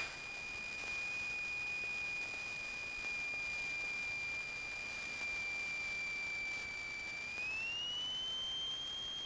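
Cessna 172RG stall warning horn sounding one steady high tone, its pitch rising about seven seconds in. This is the sign of the wing nearing the stall as the airplane is flared for touchdown.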